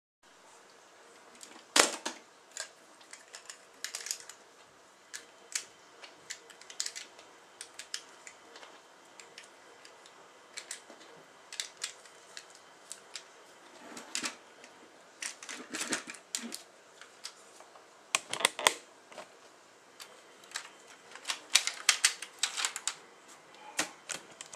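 Lego plastic parts clicking and snapping by hand as the extended magazine of a Lego bolt-action rifle is loaded, in an irregular clatter of small clicks with a few louder snaps.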